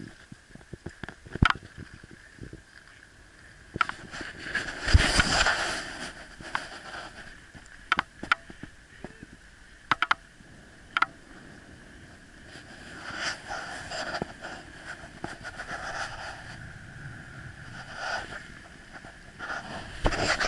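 Riding noise from a camera mounted on a moving recumbent trike: a low rolling rush with scattered sharp knocks and rattles from bumps in the path. A louder rushing noise comes about five seconds in.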